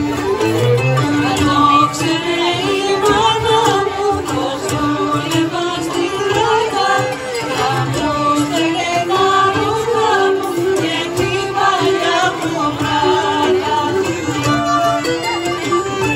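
Live traditional folk dance music from a small band, a wavering melody over a steady accompaniment.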